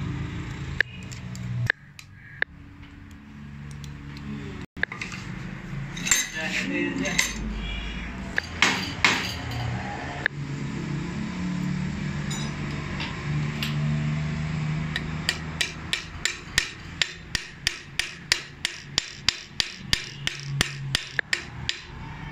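Hand tools on the metal parts of a Toyota 1HZ diesel injection pump during repair: scattered knocks and clinks, then a regular run of light taps about three a second from the second half on, over a low steady hum.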